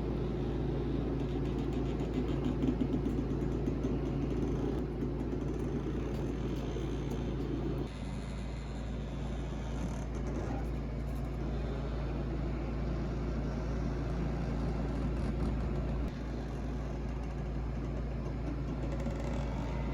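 Steady low mechanical hum and whir of a small motor or fan, dropping slightly in level about eight seconds in.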